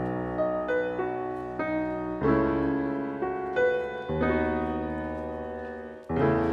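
Background piano music: slow chords and melody notes that ring and fade, with new chords about every two seconds.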